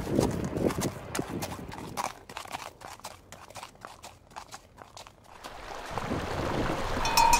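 Horse hooves clip-clopping at a walk on hard ground, a string of uneven sharp knocks. After about five seconds the knocks give way to a rising steady rushing noise.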